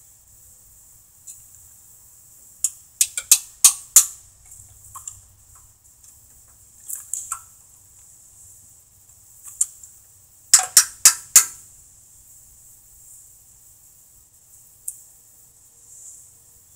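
Hammer blows ringing on metal: a wrench on a small lawn tractor engine is being struck to break loose a fastener soaked in penetrating oil. A quick run of about five blows comes about three seconds in, four more near eleven seconds, with a few lone taps between.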